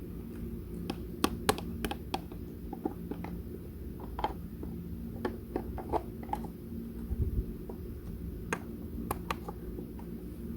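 Irregular light clicks and taps of hands handling small hard objects, a few sharper ones among them, over a steady low hum.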